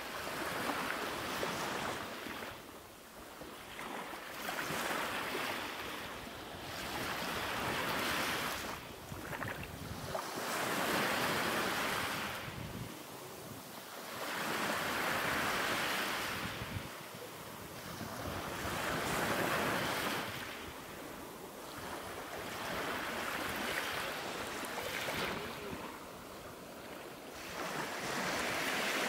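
Sea surf washing onto a shore, each wave swelling and fading every few seconds.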